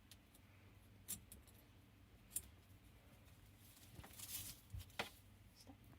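Near silence with a few faint, scattered clicks and light knocks, and a brief soft rustle about four seconds in.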